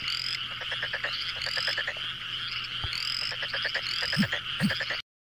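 Frogs calling: fast trains of pulsed clicks with a rising chirp about every second. Two short low calls come near the end, and the sound stops abruptly about five seconds in.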